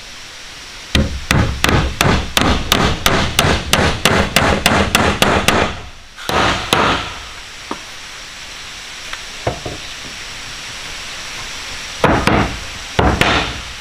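Hammer striking wood in a fast run of about twenty blows, about four a second. A pause follows, then a few shorter scraping noises near the end.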